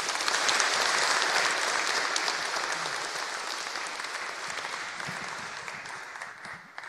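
Audience applauding at the end of a lecture. The clapping is loudest in the first couple of seconds and dies away gradually toward the end.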